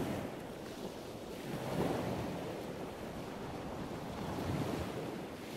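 Sea surf washing in, with wind. The wash swells about two seconds in and again later.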